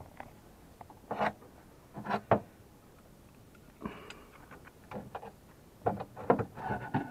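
Scattered knocks and clatters of objects being handled and moved on a wooden shelf, a few separate clicks about a second apart, then a busier cluster near the end as a tool is picked up.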